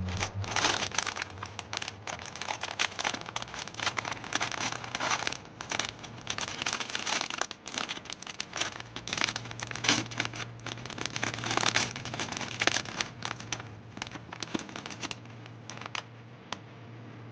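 Pop Mart blind-box packaging being opened by hand: dense, irregular crinkling and crackling of the wrapper as it is torn and handled, thinning out near the end.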